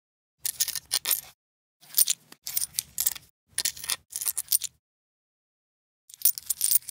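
Foley coins tossed onto a stone surface, picked up and clinking in a hand, the stone weighted down to damp its ringing. About five short flurries of metallic clinks with silent gaps between them.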